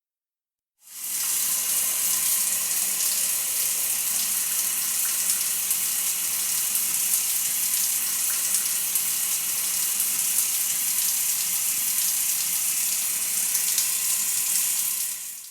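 Shower spray running steadily, a dense high hiss of falling water. It starts about a second in and dies away at the very end.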